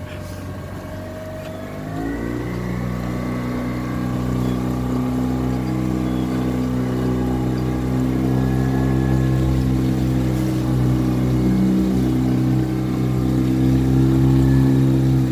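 Motorboat engine picking up speed about two seconds in with a brief rising note, then running steadily and slowly getting louder.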